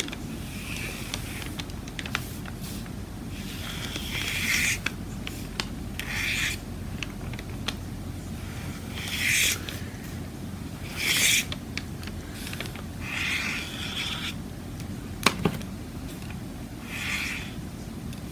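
Tip of a silver Krylon paint pen scraping across alcohol-inked photo paper in short scratchy strokes every second or two as lines are drawn. One sharp click comes about fifteen seconds in.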